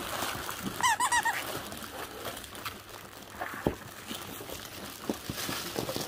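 A dog toy's squeaker squeezed in a quick run of about five squeaks about a second in, over plastic packaging and fabric rustling and crinkling, with one sharp knock a little after halfway.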